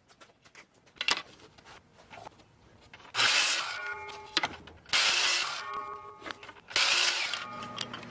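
Light clicks and knocks, then a handheld power tool run in three short bursts of about a second each, about a second and a half apart.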